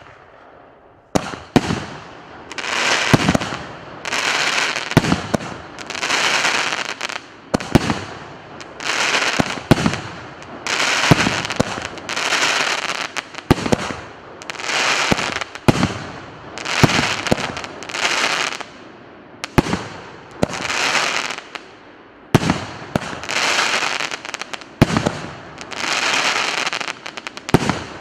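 A consumer fireworks battery (cake) firing shot after shot, about one a second. Each shot is a sharp launch pop followed by about a second of crackling burst.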